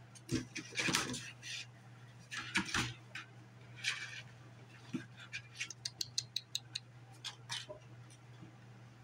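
Kittens playing in a cardboard box, their claws scratching and tapping on the cardboard and a plastic lid: scattered scrapes and rustles, then a quick run of light ticks a little past halfway. A steady low hum runs underneath.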